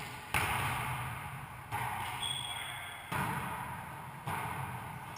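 Wallyball being hit during a rally, smacking off hands and the walls of a racquetball court. Four sharp smacks come about a second and a half apart, each echoing on in the enclosed court.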